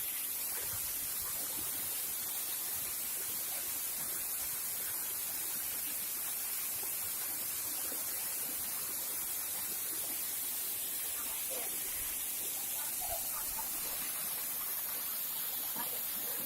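Steady rush of running and falling water from a waterfall stream: an even hiss with no breaks.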